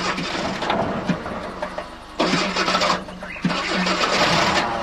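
A vehicle's starter cranking the engine in three tries, with short pauses between, and the engine not catching: the tank has run out of petrol.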